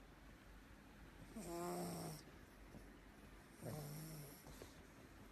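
A pug snoring: two slow snores about two seconds apart, each a low rattling tone that slides slightly down in pitch, with a breathy hiss.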